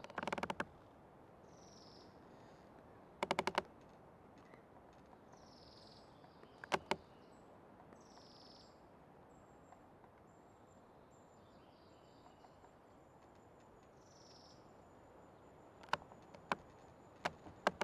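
Old tree creaking in short bursts of rapid clicks, a few times over, with small birds chirping faintly and high in the background.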